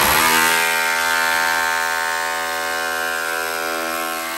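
Electric rotary hammer with a chisel bit chipping plaster off a wall. Its steady buzzing hammering starts at once, rises briefly in pitch as it spins up, then holds steady.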